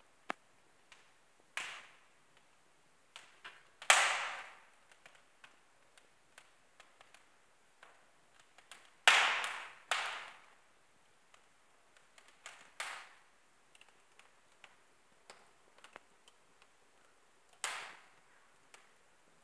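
Wood fire crackling in a fireplace: scattered small ticks and several sharp, louder pops at irregular intervals, each fading quickly. The loudest pops come about 4 s and 9 s in.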